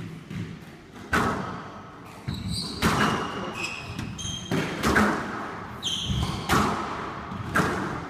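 Squash rally: sharp smacks of the ball off racquets and court walls about once a second, each with a short echo in the court, and several brief high squeaks of court shoes on the wooden floor.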